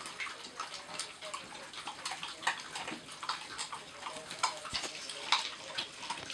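Greyhound puppies lapping from a plastic tub: a busy run of irregular wet clicks and splashes.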